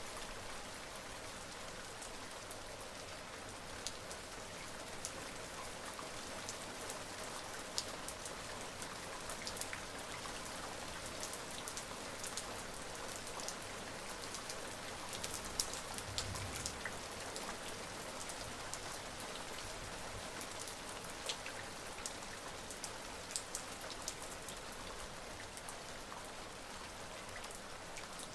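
Steady rain falling, an even hiss with individual raindrops ticking sharply here and there.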